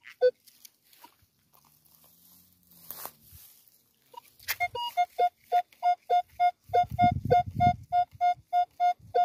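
Metal detector sounding on a buried target: a fast, regular run of short beeps, about three a second, over the second half, after a quieter stretch with a brief crunch about three seconds in.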